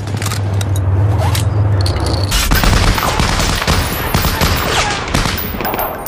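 Battle sound from a film soundtrack: a low rumble with scattered shots, then a bit over two seconds in a Browning M1919 machine gun opens up in sustained rapid automatic fire, mixed with other gunfire.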